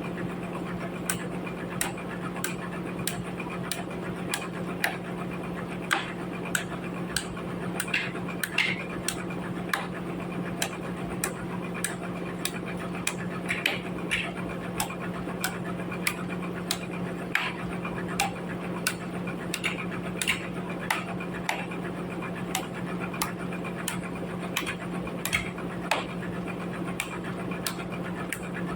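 Sawmill machinery running with a steady hum, overlaid by frequent sharp, irregular ticks and clicks.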